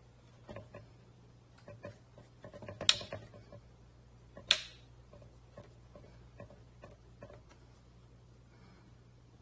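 A run of light clicks and knocks from something being handled, with two sharp louder clacks about three and four and a half seconds in, over a steady low hum.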